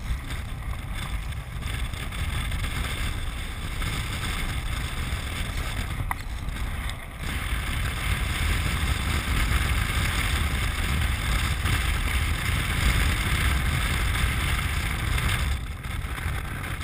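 Land sailer under way across a hard dry lake bed: steady wind rush on the mounted camera's microphone over a low rolling rumble of the wheels, growing louder about eight seconds in and easing briefly near the end.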